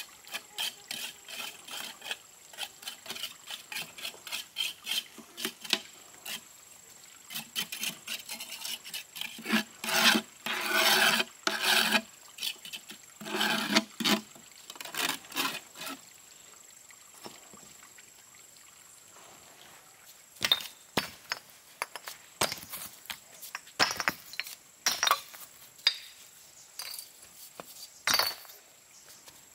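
Trowel scraping and smoothing cement mortar over brick and concrete in quick repeated strokes, heaviest about a third of the way through. After a pause of a few seconds come scattered sharp knocks and clinks of bricks being handled.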